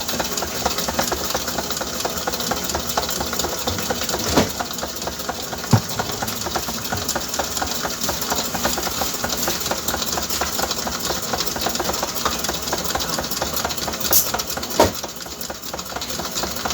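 Electric mixer running steadily, beating eggs and sugar for a cake batter, with a few sharp knocks along the way.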